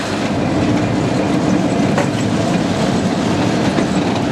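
Historic tram ACEGAT 447 running slowly past close by, its steel wheels rumbling steadily on the rails, with a sharp click about two seconds in and another near the end.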